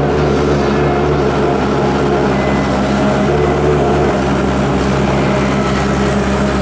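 Hyundai Robex wheeled excavator's diesel engine running steadily under load while its hydraulic arm digs and curls a bucket of soil.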